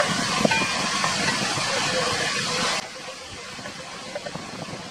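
Chicken pieces sizzling as they fry in hot oil in a pan, stirred with a spatula. About three seconds in, the sizzle drops abruptly to a quieter level, with a few light clicks of the spatula against the pan.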